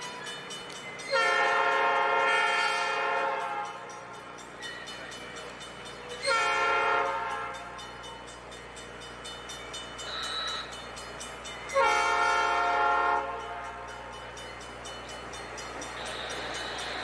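Norfolk Southern diesel locomotive's air horn sounding three blasts, the first about two seconds long and the other two shorter, a chord of several steady notes, over the steady low drone of the engines. Near the end the train's rolling noise rises as it draws nearer.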